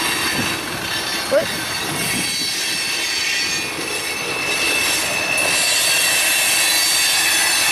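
Freight train cars rolling past steadily, with a thin, high steel-wheel squeal that grows stronger after about five seconds. A short, high chirp stands out about a second and a half in.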